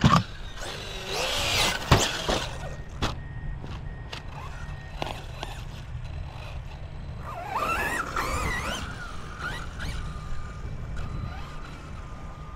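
ARRMA Fireteam RC truck's brushless electric motor whining up and down in two short bursts of throttle, a few seconds apart. A few sharp knocks come in the first three seconds, over a steady low rumble of wind on the microphone.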